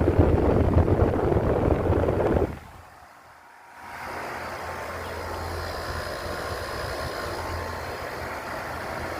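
Carrier Comfort air conditioner running with a steady low hum. Loud rumbling wind on the microphone covers it for the first two and a half seconds, it briefly drops away, and the hum returns steady.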